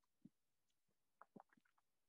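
Near silence: room tone with a few faint short clicks.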